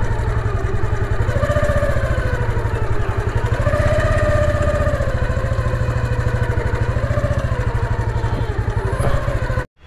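Motorcycle engine running steadily at low speed, a fast even throb with its pitch drifting slowly up and down; it cuts off suddenly near the end.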